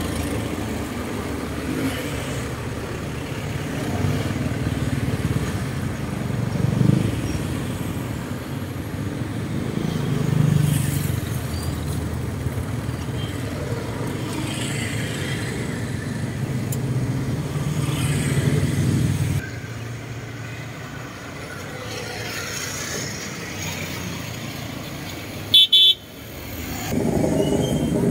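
Road traffic: cars and motorcycles passing, a steady low rumble that swells and fades as each goes by, with a short loud sound near the end.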